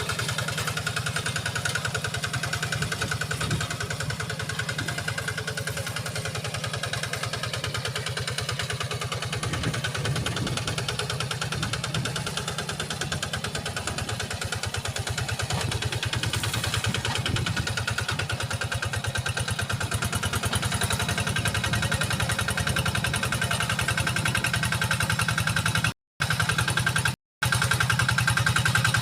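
Kubota RD85 single-cylinder diesel engine on a hand tractor running steadily with an even, rapid thudding while ploughing a wet rice paddy. The sound cuts out briefly twice near the end.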